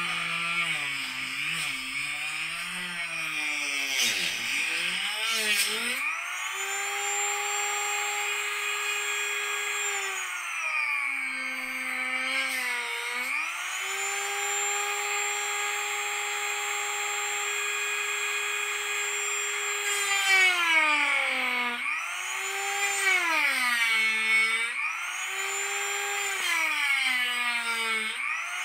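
Dremel rotary tool on an extension, with a 1-inch cutoff wheel, cutting 1/8-inch smoked plexiglass. Its motor whine sits low and wavers for the first few seconds, then climbs to a steady high pitch, and sags several times later on as the wheel bites into the plastic before rising again.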